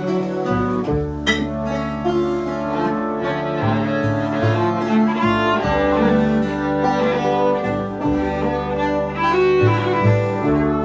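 Acoustic ensemble of pump organ, violin, banjo, acoustic guitars and a guitarrón playing a slow, sustained passage. Held bowed and organ tones run over plucked strings, with the guitarrón's bass notes changing every second or two.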